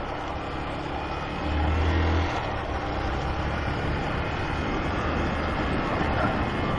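Honda CG 125 Fan motorcycle's single-cylinder four-stroke engine running under way, under a steady rush of noise; the engine note gets louder for a moment about a second and a half in.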